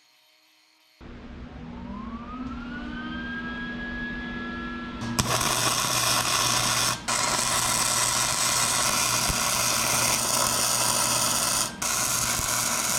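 Electric welder tack-welding a clutch sprocket to its basket: after a whine that rises in pitch and levels off, a loud steady crackling hiss of the arc with a low hum starts about five seconds in, broken twice by brief stops between tacks.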